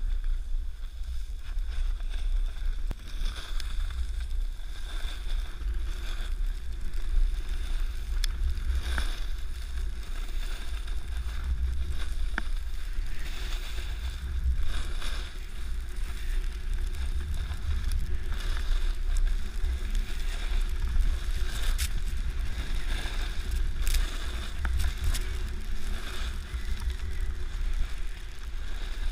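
Steady low wind noise buffeting a GoPro microphone on a pole during a snowboard run downhill, over the hiss and scrape of the snowboard sliding over packed snow, with occasional sharp knocks.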